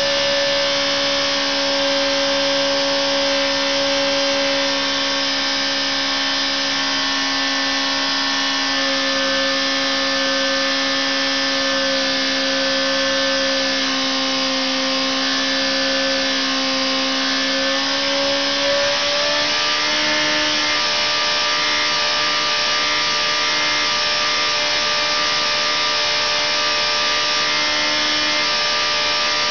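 Engine running under test on a dynamometer, a steady drone with many overtones whose pitch steps up slightly about two-thirds of the way through.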